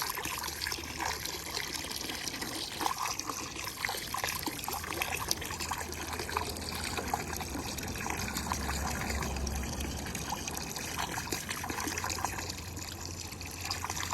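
Water trickling steadily with small irregular splashes, over a low steady hum.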